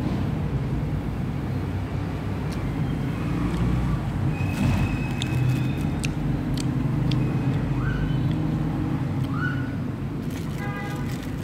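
Steady low rumble of road traffic, with a few scattered clicks and two short rising chirps in the second half.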